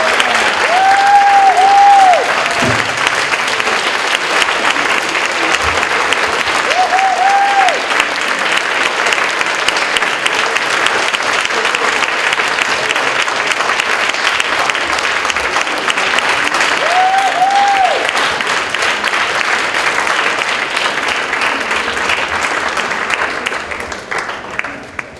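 Large audience applauding steadily, with a few short rising-and-falling whoops above the clapping, dying away near the end.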